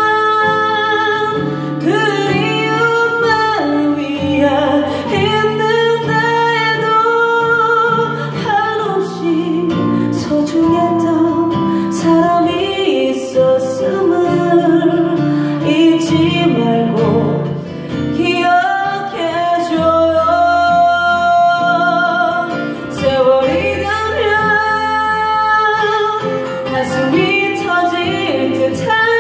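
A woman singing, with long held notes, accompanied by two acoustic guitars.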